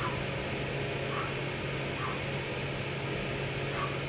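Steady low hum and hiss of workshop room noise, with a few faint clinks of tools being searched through off to one side.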